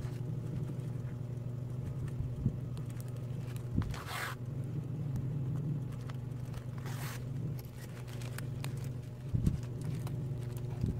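Woven polypropylene rice sack being handled at its stitched hem, with two short rustles about four and seven seconds in. A steady low hum runs underneath.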